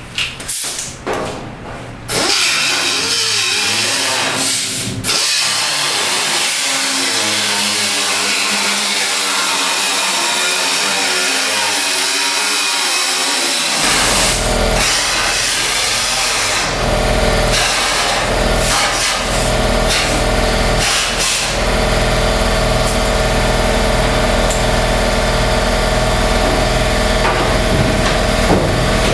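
Angle grinder with a cutoff wheel slicing through the steel of a car's quarter panel, a continuous loud grinding whose pitch wavers as it loads up in the cut. About halfway through, a low steady drone joins and runs on under it.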